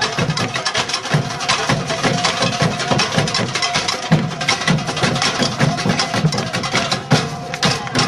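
Music with a steady percussive beat and a few held tones.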